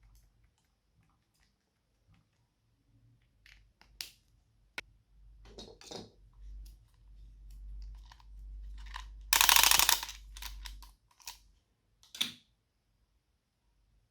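Slime being squeezed and mixed by hand: scattered sticky clicks, squelches and crunches, with one loud burst of crackling noise lasting under a second about nine seconds in.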